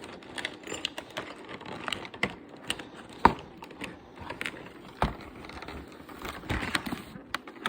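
Hands fiddling with small plastic packaging and toy pieces: irregular clicks and taps with some crinkling, as small plastic rings are worked out of an advent-calendar compartment. One sharper click stands out about three seconds in.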